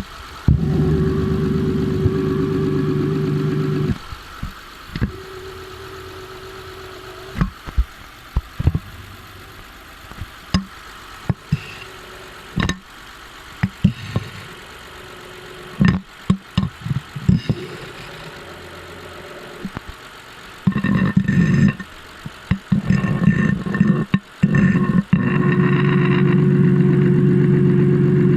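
Honda J35A9 V6 engine running at idle, heard close up at the timing-belt end. A loud, steady hum comes in stretches: for about the first four seconds, in short bursts from about 21 s, then steadily near the end. Sharp clicks and knocks fill the quieter middle. The owner is chasing a noise that he suspects comes from the water pump or the timing-belt tensioner pulley, without being sure.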